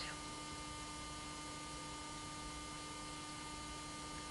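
Steady electrical hum over a faint hiss, holding several fixed tones without change.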